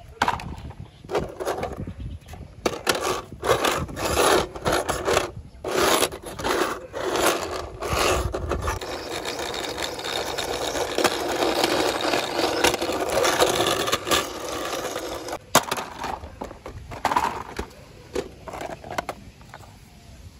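Plastic toy fire rescue truck pushed by hand over rough concrete, its wheels rolling and scraping in short irregular bursts, then in one longer steady run for several seconds in the middle.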